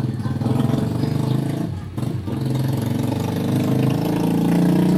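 An engine idling steadily, with an even, rapid pulse, fading briefly about two seconds in.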